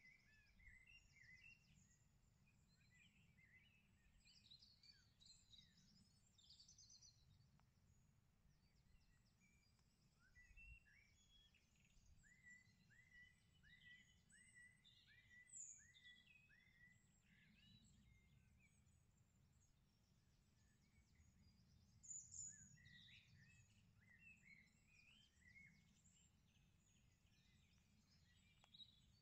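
Faint outdoor birdsong: scattered chirps from several birds, with one bird repeating a short down-slurred note about twice a second for a few seconds in the middle, over a low steady background rumble.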